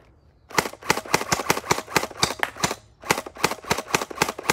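SplatRBall SRB400 electric gel blaster with a drum magazine firing full-auto in two bursts of rapid pops, each a couple of seconds long, with a short break between them.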